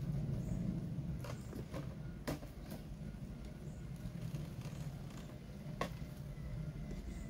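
Traxxas TRX-4 radio-controlled crawler driving, its electric motor and drivetrain giving a low steady hum, with a few sharp clicks, the loudest about six seconds in.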